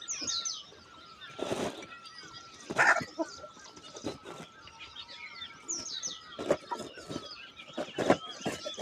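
A flock of chickens chirping and peeping together, many overlapping short high calls. A few louder sudden scuffs or flaps break through, about 1.5, 3, 6.5 and 8 seconds in.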